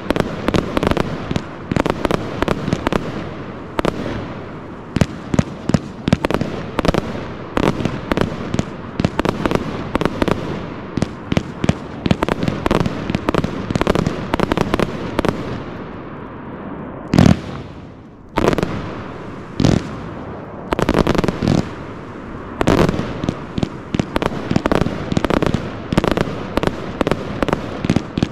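Pyroworx Ku De Gras 262-shot, 25 mm compound firework cake firing: shots launching and bursting in rapid succession, with many sharp bangs. It thins briefly about two-thirds of the way through, around one especially loud bang, then the barrage picks up again.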